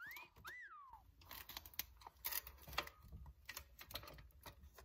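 Faint clicks and taps of the metal body of a Polaroid Land 850 folding camera being handled as its front is pulled open to extend the bellows. In the first second there is a short two-note whistle, the first note rising and the second rising then falling.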